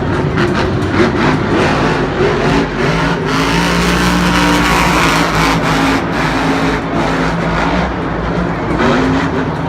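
Monster truck engines running hard at high revs, the pitch climbing about three seconds in and holding high before easing back.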